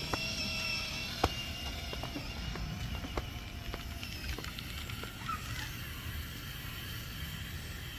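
Aerosol spray-paint can with a trigger handle hissing as primer is sprayed onto a wooden mailbox post, over a steady low outdoor rumble, with a few light clicks.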